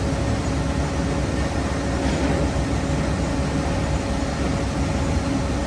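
Woodworking bandsaw running steadily, a constant machine hum with no change in pitch.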